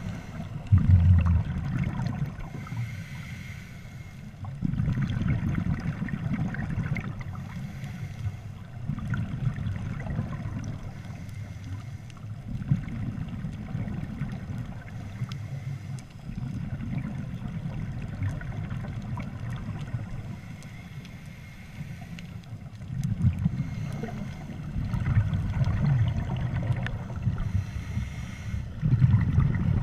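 Underwater sound of scuba diving: muffled low rumbling and gurgling of exhaled regulator bubbles, swelling in surges every three to four seconds in a breathing rhythm.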